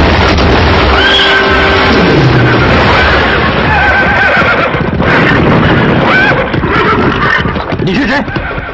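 Horses neighing and whinnying several times over a dense, continuous din, as a drama soundtrack's effects.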